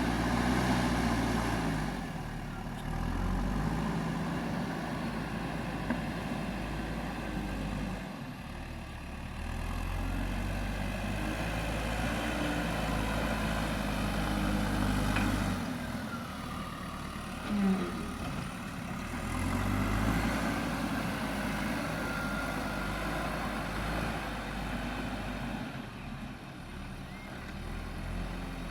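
JCB 3DX backhoe loader's diesel engine working under load, revving up for several seconds and dropping back again and again as the hydraulics dig and load soil into a dump truck. There is a brief sharp sound a little past halfway.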